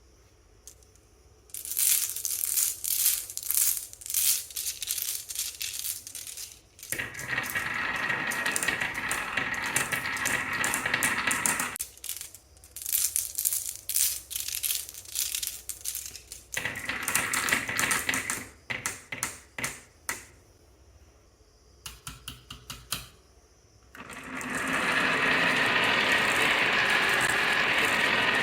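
Marbles clicking and clattering down a marble run in quick runs of knocks, with stretches of steady rolling rumble in between; the longest rolling stretch comes near the end.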